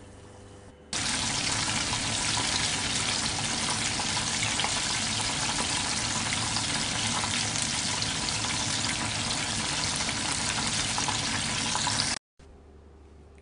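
Starch-coated chicken pieces deep-frying in hot oil: a loud, steady sizzling hiss with fine crackles. It starts abruptly about a second in and cuts off suddenly near the end.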